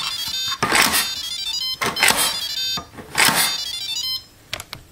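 Instant Pot Duo Mini pressure cooker playing its power-on jingle: a short electronic tune of high beeps from its built-in beeper, with notes about a second apart.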